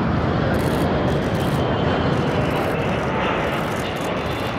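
Jet noise from the Embraer E195-E2's two Pratt & Whitney PW1900G geared turbofans as the airliner flies past overhead: a steady, loud rumble that eases slightly toward the end.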